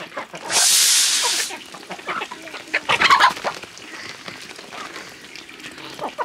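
Chickens clucking, with a louder squawk about three seconds in. Near the start a loud hiss lasts about a second and stops abruptly.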